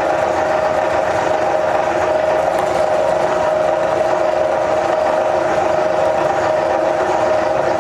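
Electric meat grinder motor running steadily, with a constant high hum and no change in load.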